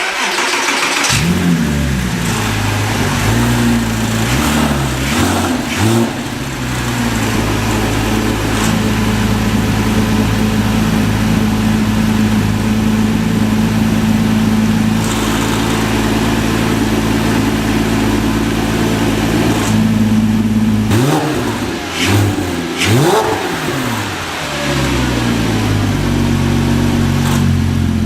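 Porsche 3.8-litre flat-six running through a freshly installed Cargraphic aftermarket exhaust: it comes on suddenly, settles into a steady idle, and is blipped a few times about three-quarters of the way through, the pitch sweeping up and down, before settling back to idle.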